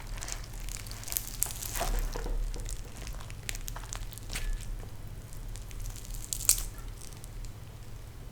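Close-miked eating of crisp fried sea bass: scattered short crackles and wet squishes as the fish is broken up and chewed, with one sharp crack about six and a half seconds in, over a low steady hum.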